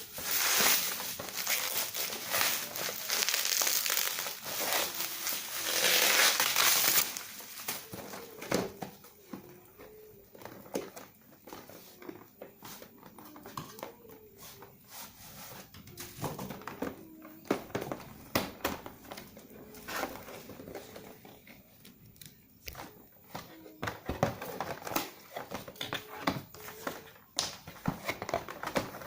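Plastic packaging being crinkled and torn open, loud for about the first seven seconds. It then gives way to quieter scattered clicks and rustles as the box and its parts are handled.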